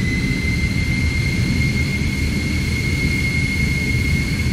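Jet airliner engines heard from inside the cabin while the plane is on the ground: a high whine that rises a little at first and then holds steady over a continuous low rumble.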